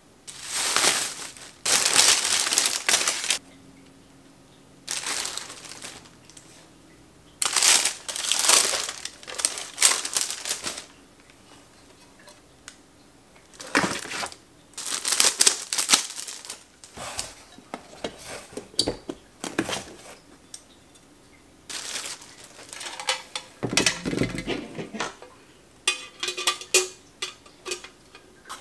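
Packaging being handled: plastic wrapping crinkling and cardboard box flaps and sleeves rustling, in several separate bursts with pauses between. Light knocks and clatter of trays being set down come in near the end.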